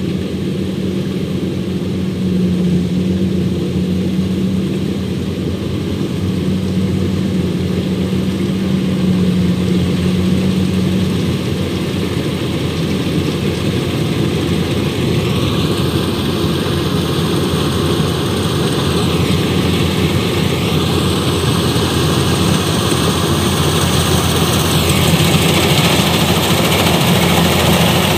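Kubota DC-105X combine harvester's diesel engine and threshing machinery running under load while harvesting rice, growing louder as the machine comes close. In the middle part a higher whine rises, holds and falls back twice.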